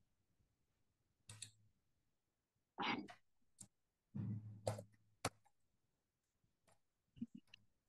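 Faint keyboard typing: scattered, irregular keystroke clicks, with two short, louder noises about three and four and a half seconds in.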